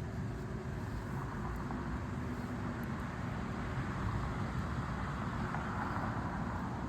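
Steady outdoor background noise: a low rumbling hum with hiss, typical of distant road traffic. It swells faintly about four seconds in.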